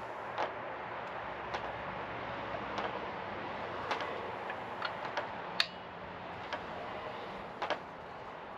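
Irregular light clicks and taps of metal hand tools and suspension parts being handled, about a dozen spread unevenly, over a steady background hiss.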